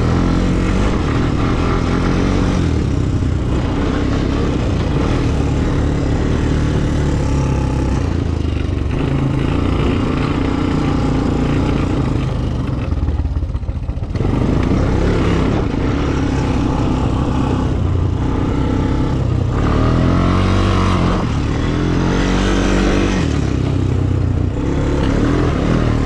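Kawasaki four-wheeler (ATV) engine running while being ridden, its pitch rising and falling as the throttle is opened and eased. The engine drops off briefly about halfway through before picking up again.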